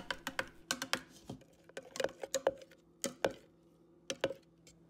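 A spoon stirring thick tomato sauce in a clear plastic measuring jug, clicking and scraping against the sides in irregular strokes that thin out toward the end.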